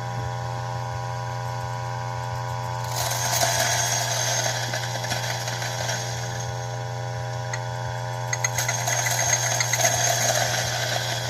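Electric burr coffee grinder running with a steady motor hum. About three seconds in, espresso beans are fed in and ground, adding a gritty crackling that lasts to the end, with a run of rapid clicking near the end.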